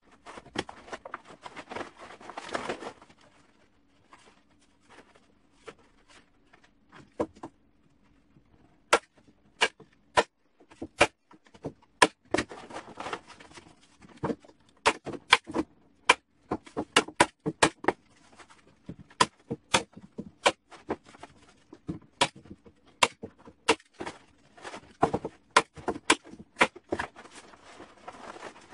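Hand staple gun firing staples through a plastic tarp into wooden decking boards: many sharp snaps at irregular intervals, most of them from about a third of the way in. Between the snaps the stiff tarp rustles as it is pulled and folded into place.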